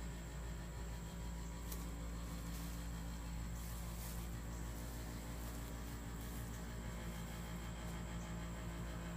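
A steady low hum with a faint hiss and a few faint ticks.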